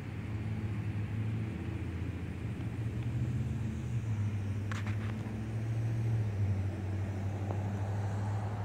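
A low motor hum, steady, that shifts a little in pitch partway through, with a couple of brief sharp clicks about five seconds in.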